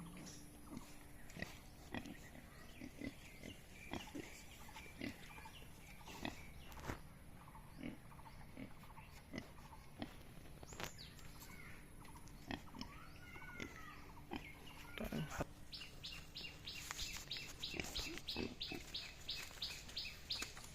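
Yorkshire-cross pigs making short calls, with scattered sharp knocks throughout. A fast, regular ticking of about three a second starts near the end.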